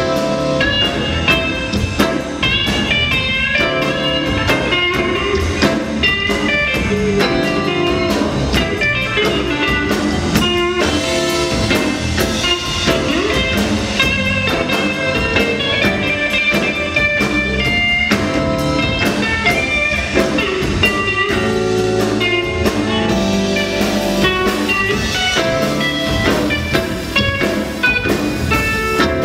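Live band playing: electric guitars over bass guitar and drum kit.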